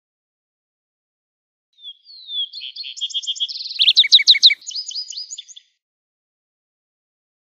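Lark sparrow singing one long, varied song starting about two seconds in: a few clear slurred notes, then a jumble of rapid trills and buzzy repeated phrases, lasting about four seconds.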